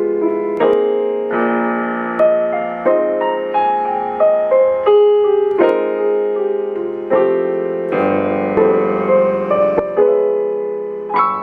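Alesis Recital digital keyboard played in a piano voice: a slow melody over chords, each note struck and fading away.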